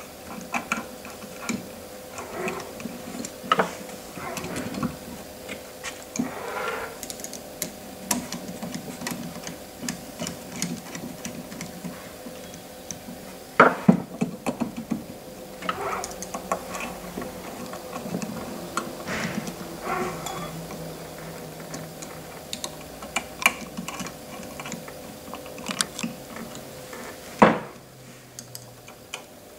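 Small machine screws being threaded and turned with a hand screwdriver, with clicks, taps and light metal knocks as a stepper motor is handled and fastened loosely to an end plate. Two louder knocks stand out, about 14 s in and near the end, over a faint steady hum.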